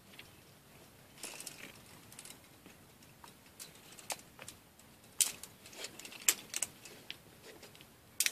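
Irregular sharp clicks and clinks of rock-climbing gear, metal carabiners and quickdraws knocking together, as a climber moves up a rock face. A few loud clinks come in the second half.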